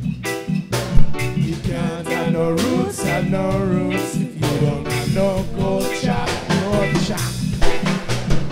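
Reggae band playing live: electric guitar and bass guitar over a drum kit in a steady, evenly accented rhythm, with a melodic line above.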